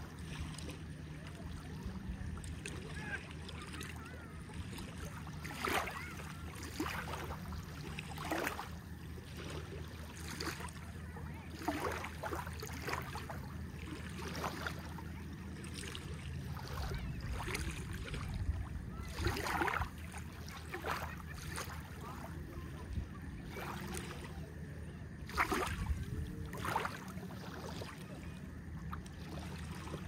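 Small waves lapping and splashing at the water's edge in irregular slaps every second or two, over a steady low hum.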